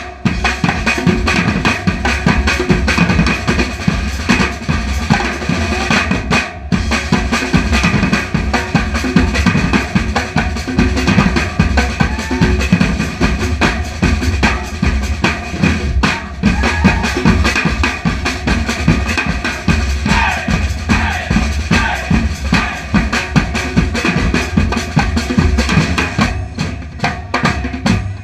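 Drums playing a busy, steady rhythm, with a bass drum and snare in the mix.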